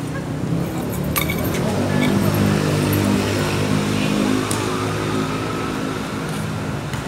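A motor vehicle engine running steadily, growing louder toward the middle and easing off near the end. Two sharp knocks come about a second in and again about four and a half seconds in.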